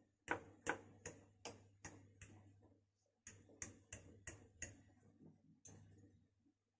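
Metal fork tapping and clinking against a ceramic plate as it presses grooves into a dip: sharp clicks about two or three a second, in two runs with a pause about three seconds in.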